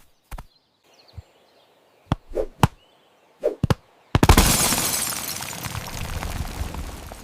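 A few sharp clicks and knocks, then about four seconds in a sudden loud crash that dies away slowly over some three seconds.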